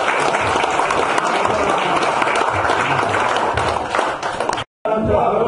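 A small group of people applauding steadily; the clapping breaks off suddenly about four and a half seconds in.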